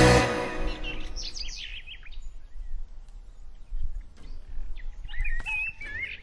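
Music fades out, then birds chirp in quick, gliding calls: one cluster about half a second to two seconds in, another near the end, over a faint low rumble.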